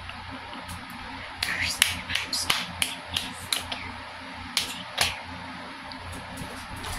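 A quick, irregular series of about ten sharp snaps from a person's hands, bunched between about one and a half and five seconds in, over a steady low hum.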